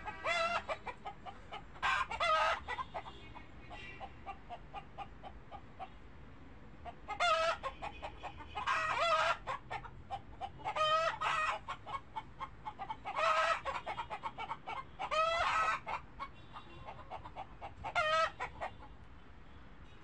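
Chickens clucking: a run of soft, quick clucks broken every few seconds by loud, short cackling calls, some coming in pairs.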